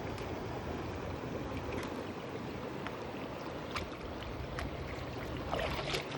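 Fast-flowing floodwater rushing steadily in a swollen stream, with a few sharp clicks in the second half.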